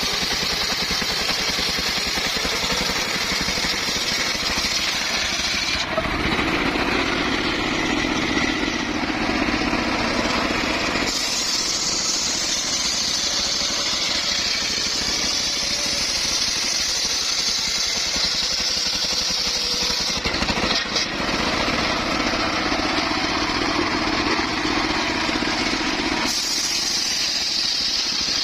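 Circular saw running continuously while cutting wood, a steady mechanical drone whose tone changes abruptly several times.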